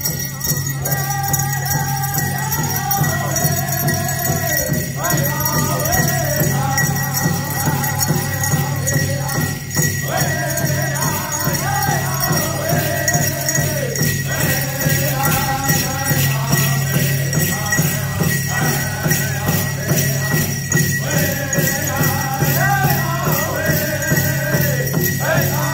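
Powwow drum group: several men striking a large shared powwow drum in a steady beat while singing high phrases that fall in pitch and repeat. The cones on the jingle dresses jingle along.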